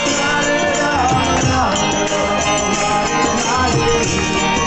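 Devotional kirtan music: a voice singing over a harmonium's sustained reedy chords, with mridanga drum beats and the jingle of karatal hand cymbals.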